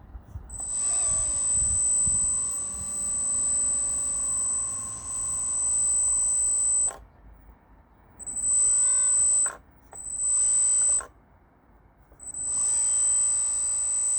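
Electric motors of a 1:14 scale LXY tracked skid steer model running with a high steady whine, in one long run and then three shorter ones.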